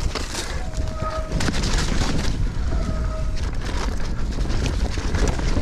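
Mountain bike ridden fast down a dirt forest trail: wind rushing over the camera microphone, tyres rolling on dirt, and the bike rattling and knocking over bumps.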